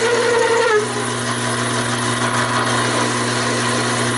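Taig micro lathe running with a steady hum while a spring-mounted parting tool cuts through a 7/8-inch steel rod under a steady, oiled feed.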